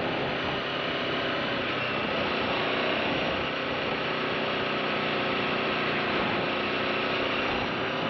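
Aprilia RSV4 motorcycle's V4 engine running steadily at an even pitch.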